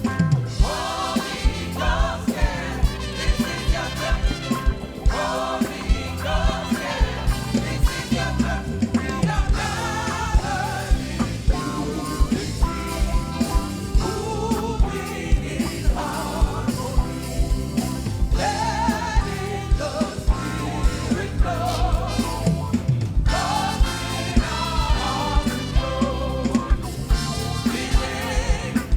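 Church choir singing a gospel song, backed by instruments with a steady beat.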